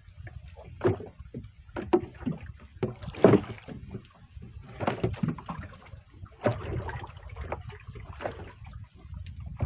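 Small boat rocking on choppy water, with waves slapping irregularly against the wooden hull over a steady low rumble.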